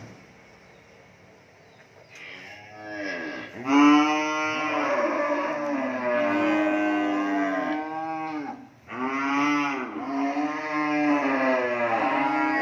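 Young cattle mooing: after a quiet couple of seconds, a short moo, then long, drawn-out moos one after another, with a brief break about two-thirds of the way through.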